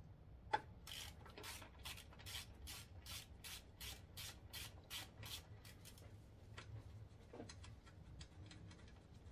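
Quarter-inch hand ratchet clicking in quick, even strokes, about four a second, as a bracket bolt on the motorcycle engine is backed out. A single sharp click comes about half a second in, and the clicking turns slower and more scattered after about six seconds.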